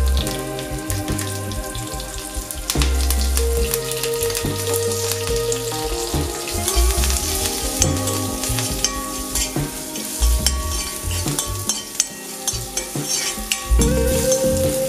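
Crushed garlic, curry leaves and dried red chillies sizzling and crackling in hot oil in a black iron kadai, stirred with a steel spatula. Background music plays underneath.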